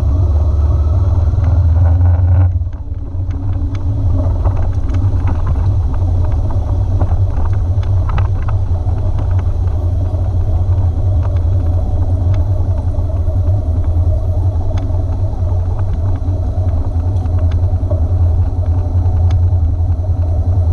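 Motorcycle engine running as the bike rides slowly, a steady low rumble with a brief dip in level about two and a half seconds in.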